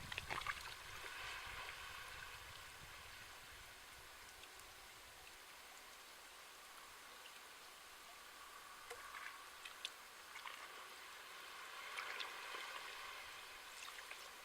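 Small sea waves washing on the shore: a wave dies away in the first couple of seconds, leaving a soft hiss of water that swells again twice later on, with small crackling ticks.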